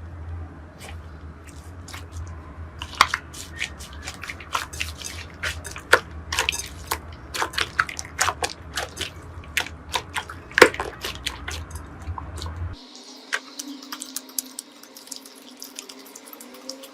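Slime being squeezed and pressed by hand: many quick, irregular wet clicks and pops. About thirteen seconds in, the sound switches to a lighter, higher clicking.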